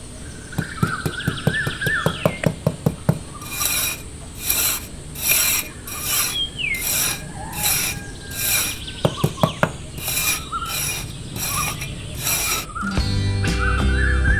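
A quick run of sharp clicks, then a steady series of rasping scraping strokes, about one every 0.7 seconds, with small birds chirping throughout; music comes in near the end.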